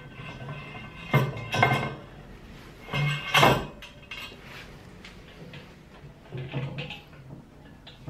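Heavy aluminium extrusion profiles knocking and clanking against each other as they are shifted into position: a few sharp metallic knocks in small clusters, the loudest about three seconds in and a softer pair near the end.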